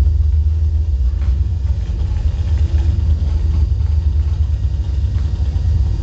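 A running microwave oven's electromagnetic waves, picked up by a coil inside it and fed to an amplifier, sounding as a loud, steady deep bass drone. A fainter, higher tone comes and goes over it.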